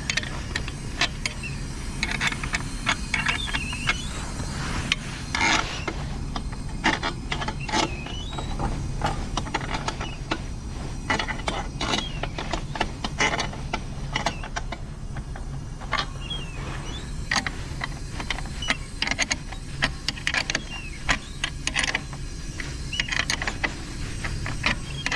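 Irregular metal clicks and short scrapes of hand tools working on the fittings of a new natural gas service riser as it is tightened, over a steady low hum.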